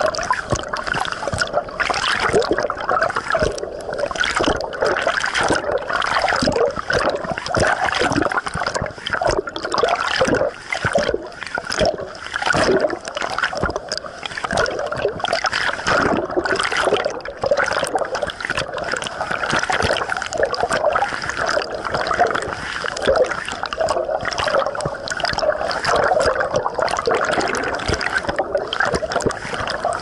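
Churning water at the foot of a waterfall, heard through an action camera held under the surface of the plunge pool: a dense, constantly fluctuating rush of bubbling water.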